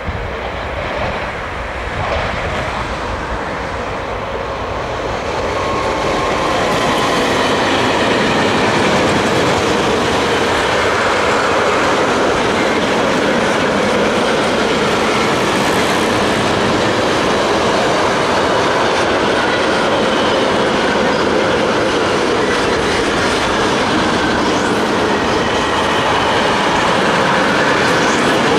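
Freight train of double-deck car-carrier wagons, hauled by a Series 1600 electric locomotive, passing at speed: the steady rolling noise of wheels on rail grows louder about six seconds in as the train arrives, then holds steady as the wagons go by.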